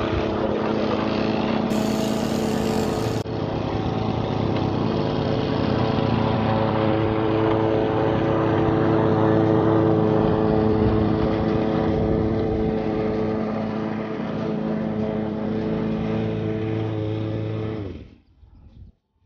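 Walk-behind petrol lawn mower engine running steadily under mowing, its pitch shifting slightly now and then. The sound cuts off suddenly near the end.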